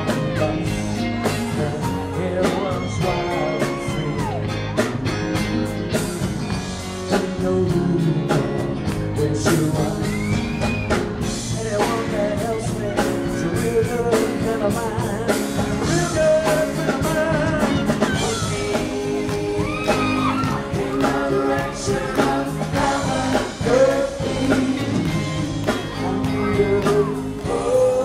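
Live rock band playing, with drums, guitar and a voice singing.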